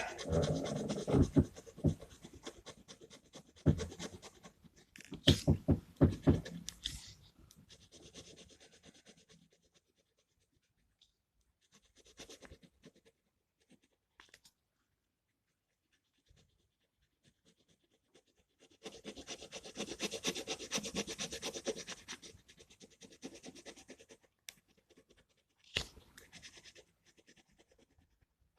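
Scratching and rustling of a gel pen set and colouring book being handled, in irregular bursts through the first seven seconds and again around twenty seconds in, with quiet stretches and a few short clicks between.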